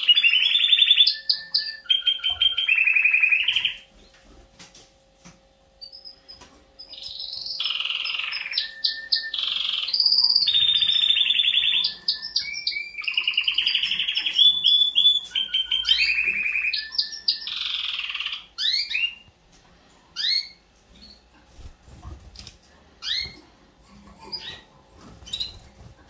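Domestic canary song: long runs of rapid, trilled, repeated phrases, typical of canaries singing ahead of the breeding season. The song breaks off for a few seconds near the start, resumes for about ten seconds, then gives way to short scattered chirps for the last several seconds.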